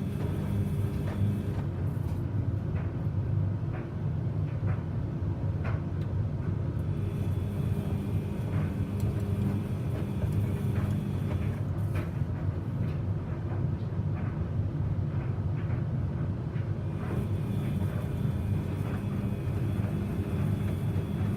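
Samsung washing machine running a 95°C Baby Care wash: a steady low hum and rumble with scattered light clicks throughout.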